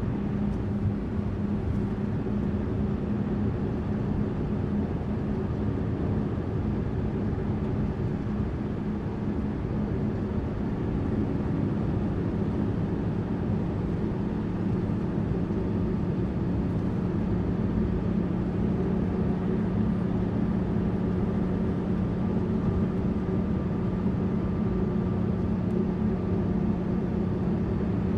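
Tourist bus running steadily: a continuous engine drone over road noise, its pitch settling slightly lower about halfway through.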